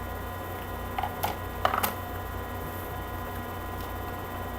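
Faint clicks and rustles of trading cards being handled and slid through a pack, a few light ones about one to two seconds in, over a steady electrical hum.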